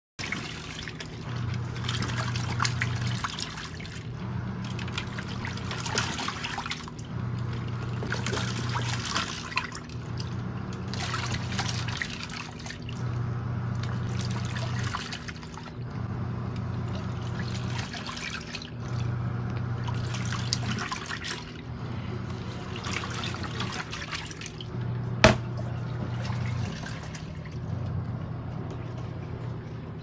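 Nictemaw portable top-load washing machine agitating a load in water: the motor hums for about two seconds, pauses about a second and starts again, over and over, with the water sloshing in time. One sharp click comes near the end.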